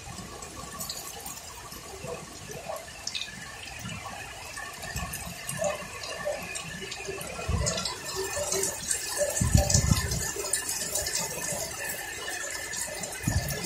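Heavy rain pouring steadily, with many drops splattering sharply on nearby surfaces. The rain grows louder about eight seconds in, and a few brief low thumps come through, the loudest near ten seconds.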